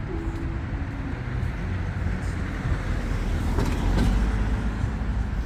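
A car driving slowly past close by over a steady low traffic rumble, its engine and tyre noise loudest about four seconds in.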